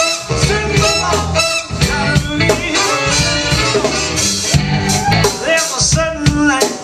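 A live band playing an upbeat song with a horn section, bass and drums.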